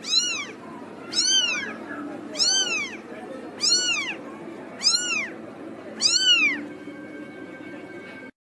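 Newborn kitten mewing: six high, thin cries, one about every second and a quarter, each rising and then falling in pitch.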